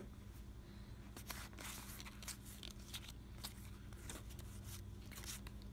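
Playing cards being handled and flipped through: faint, scattered soft clicks and rustles over a low steady hum.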